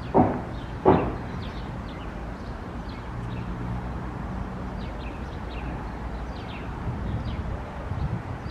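Two dull knocks about a second apart, then faint short bird chirps over a steady low hum.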